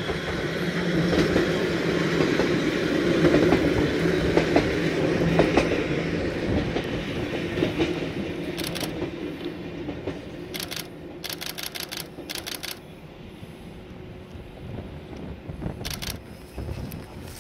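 Fukui Railway electric train passing on a single-track line, its wheels clacking over the rail joints over a steady low hum. It is loudest in the first few seconds, then fades as it moves away, with a few faint clacks near the end.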